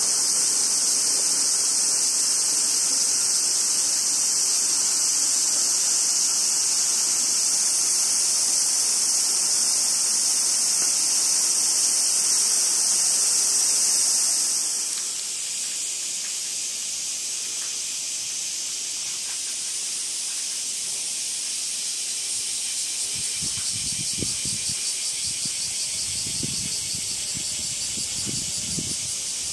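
Summer cicadas buzzing in a steady, high-pitched chorus. About fourteen seconds in it drops and becomes a slightly lower, pulsing drone.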